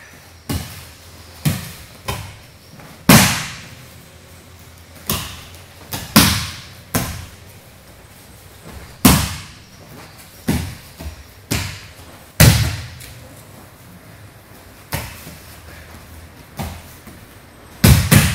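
Aikido breakfalls on a mat floor: a dozen or more sharp slaps and thuds of a body and hands hitting the mat, each echoing briefly in the hall, the loudest coming about every three seconds.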